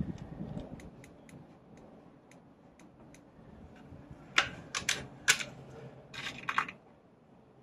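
Mechanical handling noise from a break-barrel spring air rifle between shots: a few faint ticks, then a quick run of sharp clicks and clacks a little past halfway.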